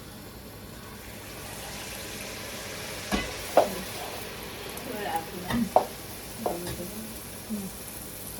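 Sel roti deep-frying in hot oil with a steady sizzle, while a wooden turning stick knocks and scrapes in the pan a few times, about three to six seconds in.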